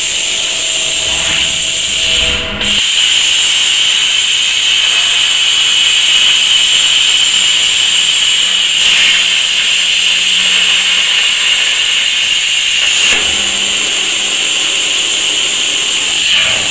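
Robotic plasma torch cutting steel channel, a loud steady hiss. After a brief dip about two and a half seconds in, the cut runs with a denser rushing hiss until about thirteen seconds in, when it stops and the steady hiss continues.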